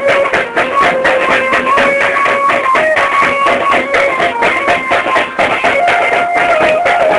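Loud music: a held melody line that steps between notes over fast, sharp beats.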